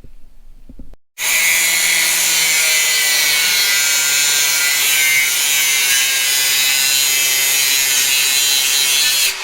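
A power tool cutting metal: a loud, steady whine and hiss that starts abruptly about a second in and cuts off just as abruptly near the end.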